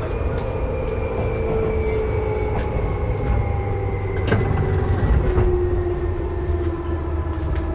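Running sound inside a field-chopper-controlled Seibu 2000 series electric train: a steady low rumble of wheels on rail, with the motor whine falling slowly in pitch as the train slows. A few sharp clacks from the rails come through.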